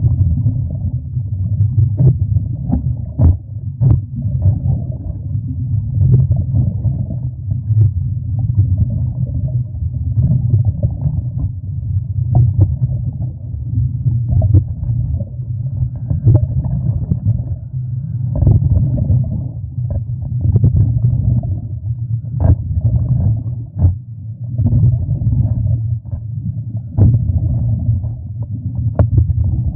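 Muffled underwater noise picked up by a submerged camera: a steady low rumble with scattered clicks and knocks.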